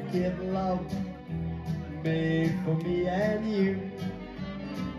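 Live pop song played over a backing track with a steady beat and bass, a saxophone carrying the gliding melody line.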